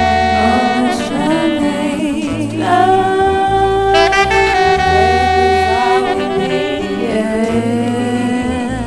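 Background intro music: long held melody notes, with what may be singing, over a bass note that repeats roughly once a second.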